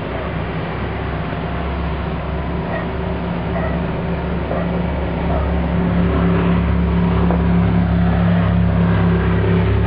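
Motorboat engine running steadily, a low drone that grows a little louder about six seconds in.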